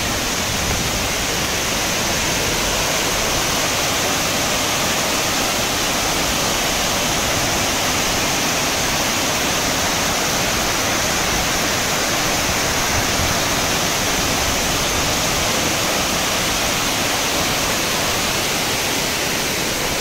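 Waterfall: water pouring and splashing down in a loud, steady rush.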